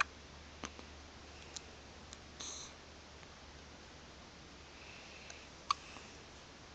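A baby hiccuping: a few faint, short, sharp hics at irregular spacing, the loudest near the end.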